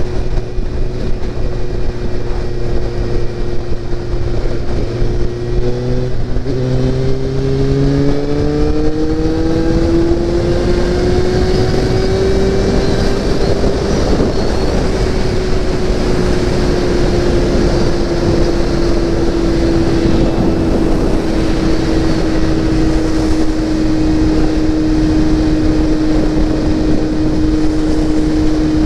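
Motorcycle engine under way, with heavy wind noise on the microphone. About six seconds in the engine note dips, then climbs steadily for several seconds as the bike accelerates, then slowly eases back down to a steady cruise.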